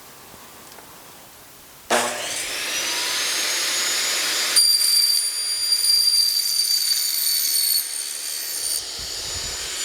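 An electric power tool starts about two seconds in, its motor whining up in pitch as it spins up, then running with a steady high whine.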